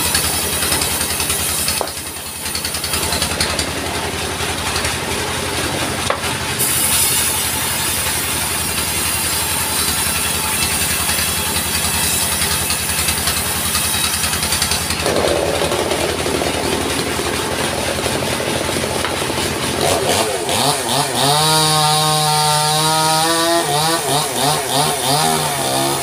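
Portable log sawmill running under its engine, the blade sawing lengthwise through a log with a steady loud hiss. In the last few seconds a wavering pitched tone rises over the machine noise.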